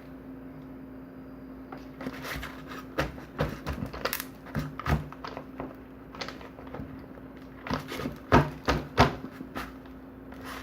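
Sharp clicks and knocks of small hard objects being handled on a workbench while soldering 18650 battery terminals, coming in two bursts, the loudest pair near the end. A steady low hum runs underneath.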